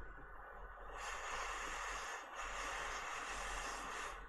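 Hot air rework station blowing, a steady hiss of air that starts about a second in, dips briefly partway through, and cuts off near the end.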